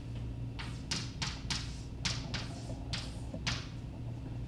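Chalk writing on a blackboard: about nine short taps and scrapes in quick, uneven succession, over a steady low hum.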